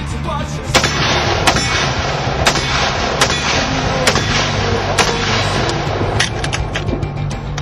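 AR-15 carbine fired semi-automatically: a string of single shots about a second apart, coming quicker in the last couple of seconds.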